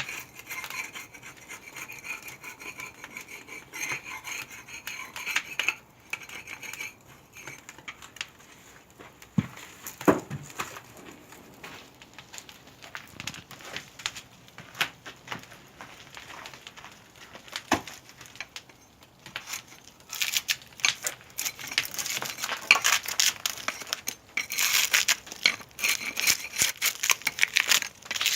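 Pieces of firewood scraping and knocking against each other as they are handled, with a low thud about ten seconds in and a dense run of clattering and scraping in the last several seconds.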